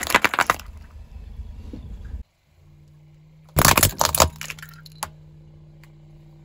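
Car tyre rolling over a row of small plastic cups filled with liquid: a quick run of cracks and pops, then a low rumble. A second burst of plastic cracking and snapping comes about three and a half seconds in, over a steady low engine hum.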